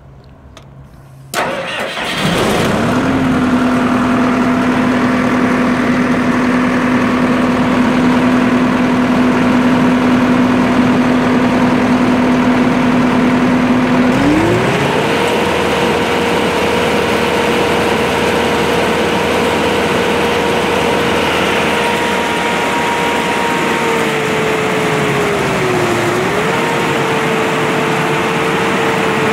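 Caterpillar diesel engine of a Morbark Tornado 15 wood chipper starting up about a second in, then running steadily at idle. About halfway through it speeds up to a higher, steady running speed, with a brief dip in speed near the end.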